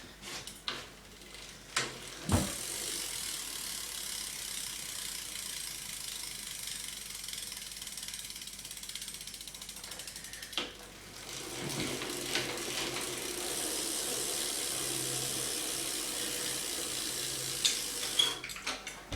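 DMR rear hub freewheel clicking as the back wheel of a dirt-jump bike spins freely, a fast, even ratcheting of the pawls. It runs in two spells, from about two seconds in to about ten seconds, then again from about twelve seconds until shortly before the end, with a knock between them.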